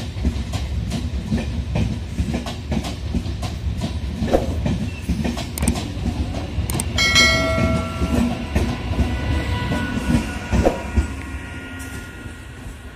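Local passenger train running past close by, its wheels clattering rhythmically over the rail joints. About seven seconds in a train horn sounds, strong for about a second and then fainter, while the clatter fades away near the end as the last coach goes by.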